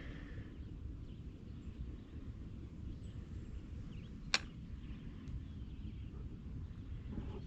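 Wind buffeting the camera microphone as an uneven low rumble, with one sharp click about four seconds in.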